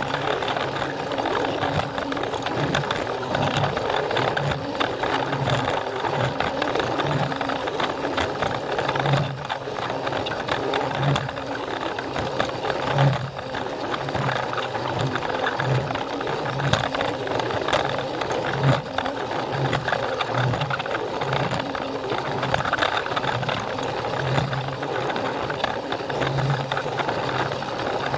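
Plarail toy train's small battery-powered motor and plastic gears running steadily, with occasional clicks as the wheels run over the track.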